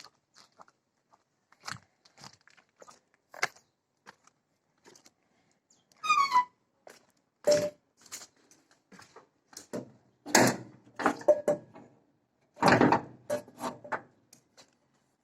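Birds feeding: irregular pecking knocks, taps and crunches, with one short chirp about six seconds in.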